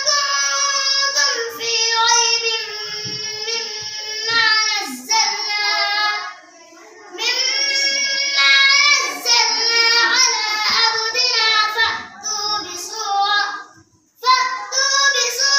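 A child's high voice reciting the Quran in a melodic chant, with long held, wavering notes and a pause for breath about six seconds in and another near the end.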